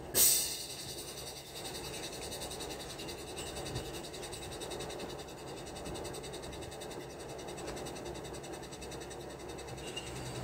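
One sharp knock on the steel wall formwork and its tie clamps just after the start, dying away within about half a second, then steady background noise.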